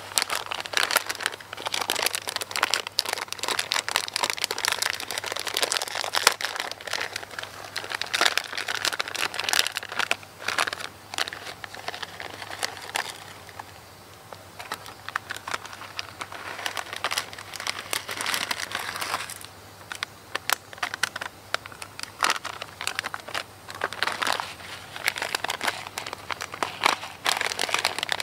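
Plastic crinkling and crackling as it is handled, in uneven stretches with short pauses between them.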